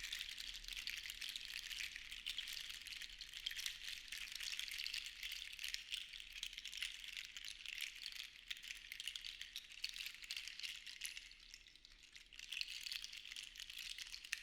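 Seashells rattling and clattering together in a continuous dense patter of small clicks, as in a shell shaker. It eases off briefly near the end and then picks up again.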